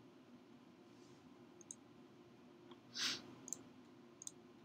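A few faint computer-mouse clicks as a colour is picked, with a short breathy noise about three seconds in, over a low steady hum of room tone.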